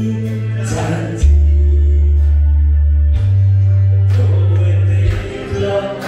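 A man singing into a microphone over amplified backing music. Long, heavy bass notes hold and change about every two seconds, and the voice is heard at the start and again near the end.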